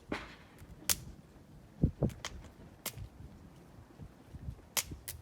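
Wood fire crackling: irregular sharp pops, the loudest about a second in, three seconds in and near the end, over a low rumble. A couple of duller knocks come about two seconds in.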